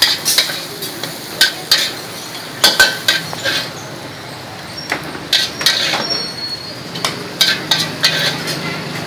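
A metal spatula clanks and scrapes against a steel wok in irregular strokes as food is stir-fried and scooped out, with sizzling between the strikes. The strikes thin out about halfway through and pick up again near the end.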